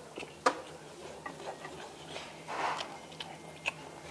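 Metal chopsticks clicking against dishes and the grill plate: a few sharp clicks, the loudest about half a second in, with a brief softer rustle of food being picked up in the middle.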